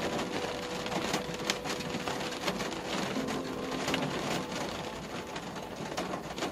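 Rain hitting a car's windscreen and roof, heard from inside the moving car: many sharp drop hits over a steady hiss.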